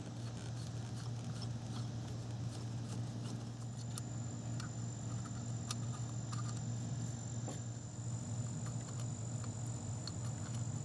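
Faint, scattered small clicks of a screwdriver backing a Phillips screw out of a throttle position sensor, over a steady low hum. A thin, high, steady whine joins about a third of the way in.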